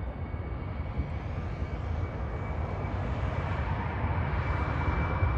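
Twin jet engines of a Boeing 767-300F freighter on its takeoff roll: a steady jet rumble that grows gradually louder, with a thin steady high whine on top.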